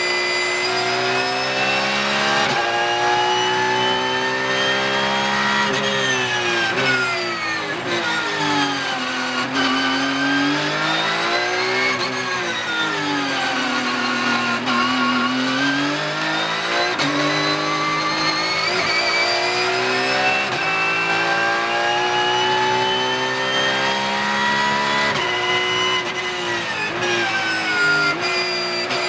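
Porsche 911 GT3 Cup (992) race car's 4.0-litre flat-six, heard from inside the cockpit while lapping. The engine note climbs under acceleration and falls as the car brakes and downshifts for slower corners. It drops low twice, around 10 and 15 seconds in, climbs through the gears after each, and falls again near the end.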